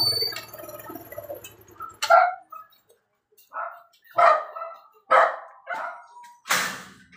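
A dog barking: several short, separate barks about half a second to a second apart. Near the end comes a rattle of the wire-mesh gate as it is handled.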